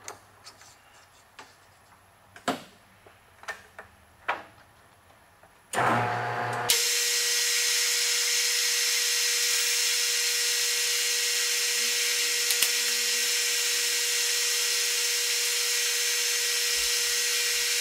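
A few light clicks and knocks as a metal bar is fitted into a lathe's collet chuck. About six seconds in the lathe starts up and then runs steadily, a constant whine over an even hiss, while a turning tool faces off the end of the bar.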